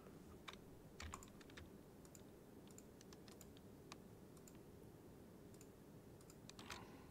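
Faint computer keyboard keystrokes and clicks, irregularly spaced, over a steady low room hum.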